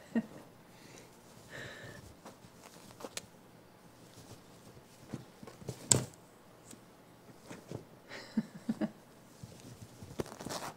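Baby cinnamon capuchin monkey scrambling over a towel-covered couch and pawing at a mirror: scattered light scuffs and taps, with one sharper knock about six seconds in.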